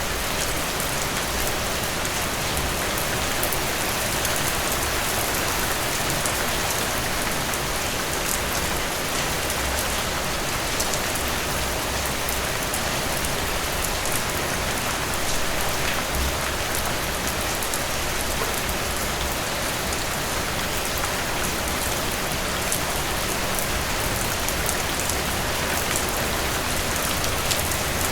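Steady rain falling on a surface, a dense even hiss with many small drop ticks.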